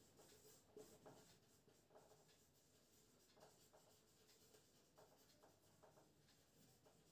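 Very faint dry-erase marker strokes on a whiteboard, a word being written out in short strokes.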